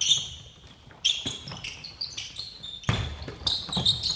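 Basketball play on a wooden gym floor: sneakers squeak in short high chirps, and a basketball thumps on the floor a few times.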